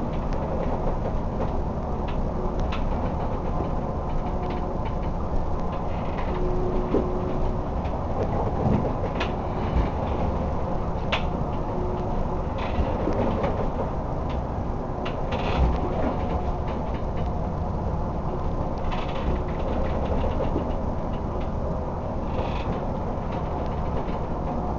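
A crab boat in a Bering Sea storm: a loud, steady rumble from the vessel and sea, broken by scattered knocks and rattles.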